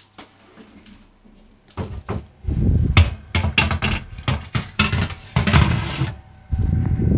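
Baking paper crinkling and a metal baking tray clattering and scraping as a tray of puff pastries is handled at the oven, for about four seconds. Near the end a steady low rumble starts.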